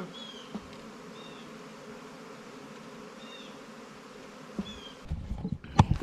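Steady hum of a honeybee swarm flying around in the air after being shaken from its cluster in a tree, with a bird chirping a few times. From about five seconds in, a run of loud thumps and rustles breaks in.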